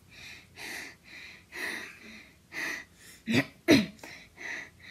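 A boy sniffing at a cup of slime in a run of quick, noisy breaths about twice a second. Two short, louder voiced gasps falling in pitch come a little past three seconds in.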